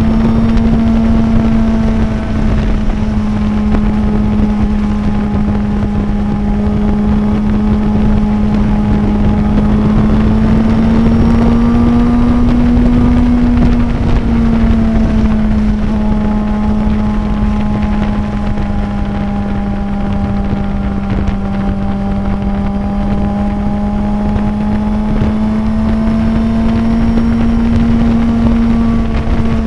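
Suzuki inline-four sport-motorcycle engine running at a steady high rpm at highway cruising speed, with wind rushing over the microphone. The engine note holds nearly even, creeping up in pitch and dropping back twice, about halfway through and near the end.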